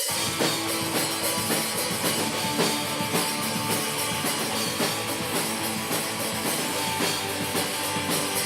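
Punk rock music: a band playing with a full drum kit driving a steady beat under guitar.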